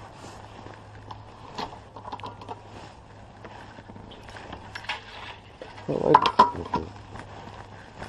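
Light metallic clicks and jangling as a Suzuki DR-Z400 dirt bike is handled, over a steady low hum, with a louder clatter about six seconds in.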